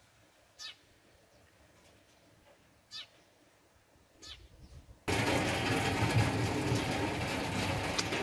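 A few short, high animal calls, spaced a second or two apart, then a sudden steady rushing noise from about five seconds in.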